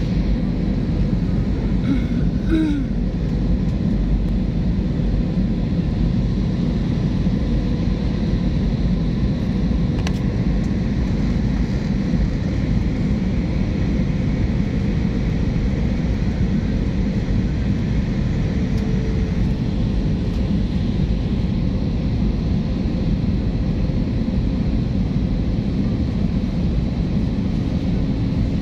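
Steady cabin noise of a passenger aircraft in flight: a constant low rumble of engines and rushing air, with a faint steady hum on top.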